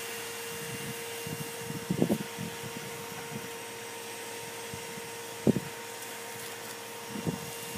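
A steady motor hum with a constant whine over a low hiss. A few short low thumps and knocks come about two, five and a half and seven seconds in.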